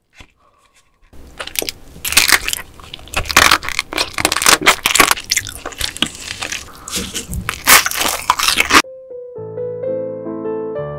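Close-miked eating sounds: loud crunching and wet chewing of raw marinated crab with rice wrapped in dried seaweed, busy and uneven. This stops abruptly about nine seconds in, and soft piano music begins.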